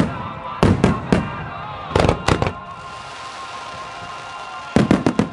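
Aerial firework shells bursting in quick clusters of sharp bangs: three around the first second, four more around two seconds in, and another cluster near the end, each followed by a short rolling echo.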